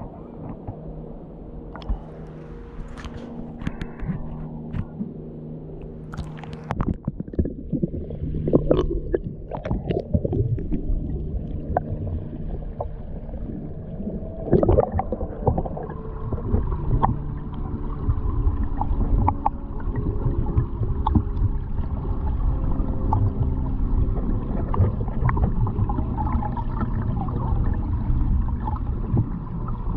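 River current heard underwater through a submerged camera's waterproof housing: muffled gurgling and rumbling with scattered clicks and knocks, over a low steady hum. In the first few seconds, sharper splashing as the camera goes below the surface.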